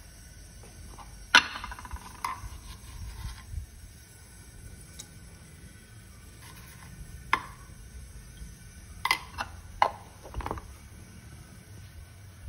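Kitchen utensils clinking and knocking against a metal pot and containers, a handful of separate sharp clinks. The loudest comes about a second in and rings briefly, and a quick cluster follows near the end.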